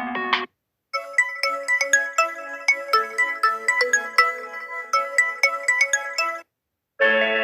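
Samsung Galaxy A32 phone ringtones playing back to back. One ringtone cuts off, and after a short gap a ringtone of quick, bright, bell-like notes plays for about five and a half seconds and stops. Another ringtone of held tones starts near the end.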